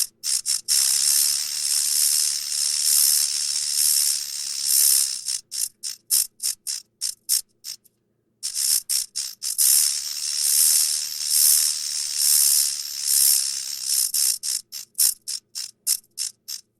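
Dragonfly wings buzzing with a high rattle, in two bouts: a sustained buzz that breaks up into quick stuttering pulses and stops, then starts again about eight seconds in.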